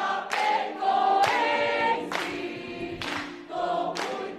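A choir singing: long held notes that glide between pitches, with sung words whose hissing consonants cut through every second or so.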